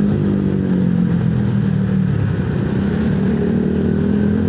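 Motorcycle engine running at a steady cruising speed, heard from the bike itself along with wind and road noise. The engine note dips a little about halfway through and then picks back up.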